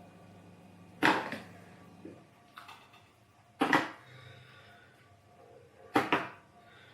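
Kitchen utensil knocking sharply against a dish three times, a couple of seconds apart, with a few fainter clicks between, while red salsa is spooned over a layer.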